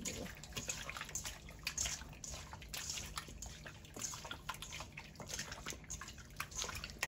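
A hand squishing and turning raw chicken wings in a wet soy-sauce marinade in a stainless steel bowl: irregular wet squelches and slaps over a steady low hum.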